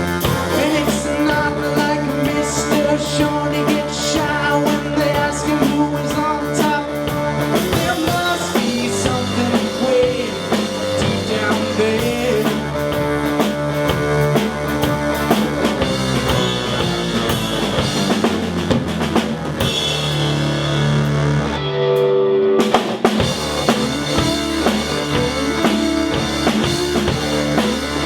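Rock band playing loud live music with drum kit and guitar. About three quarters of the way through the drums drop out for a moment under a few held notes, then the full band comes back in.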